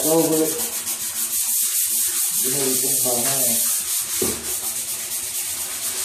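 180-grit sandpaper rubbed by hand over the painted fuel tank of a 2009 Suzuki GSX-R1000 in quick back-and-forth strokes, making a steady scratchy hiss. The old finish is being scuffed down as prep for filler and primer.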